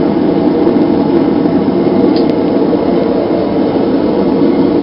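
Gas forge burner, run without a blower, running with a steady, loud rushing noise, then shut off suddenly near the end.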